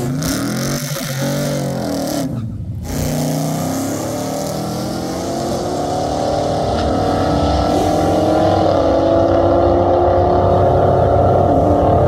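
Drag-racing Chevelle's V8 revving up and down at the starting line, then, after a short break, race engines at full throttle on a drag-strip run, the engine note climbing and growing louder.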